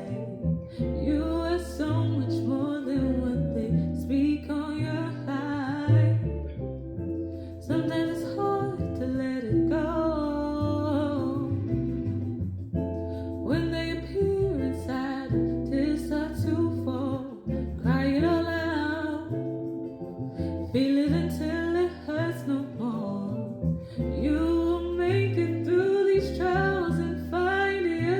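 A song being sung over a sped-up backing beat, with plucked guitar and a bass line that steps through the same short pattern every few seconds.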